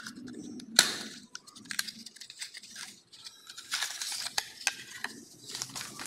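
Unboxing handling noise: a small cardboard box and a plastic pouch rustling and clicking in the hands, with one sharp snap about a second in and denser rustling in the second half.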